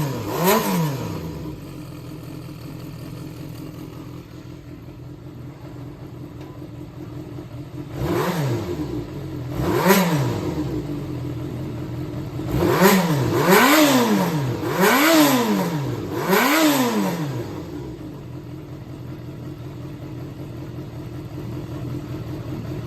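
Yamaha XJR400's air-cooled inline-four engine idling and being blipped on the throttle about seven times, each rev rising and falling quickly, with a quick run of four blips in the middle before it settles back to a steady idle. The engine is sold as running well, with no abnormal noise.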